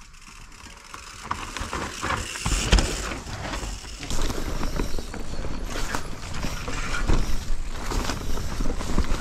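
Mountain bike's freehub ratchet clicking as it coasts. From about two seconds in, the sound of the bike rolling down a dirt trail gets louder as it gathers speed: tyres on the ground, chain and frame rattling over bumps, and wind on the microphone.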